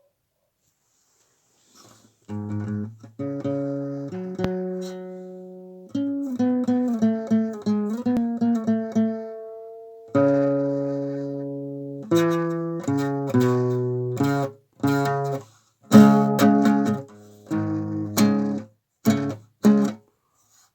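Guitar playing a slow blues introduction, starting about two seconds in. Chords and short runs are left to ring and fade, then give way to short, clipped chords in the last few seconds.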